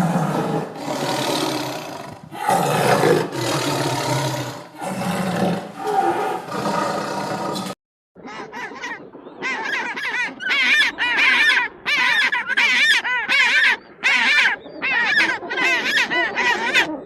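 Farm fowl calling loudly in two separate takes. First comes a dense, noisy flock chorus. After a brief break about eight seconds in, a quick run of short bursts of rapid, wavering high calls follows.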